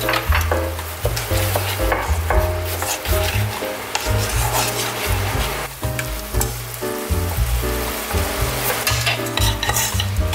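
Baby basket clams sizzling in an oiled frying pan as wooden chopsticks stir them, with repeated clicks and scrapes against the pan. Background music runs underneath with changing low notes.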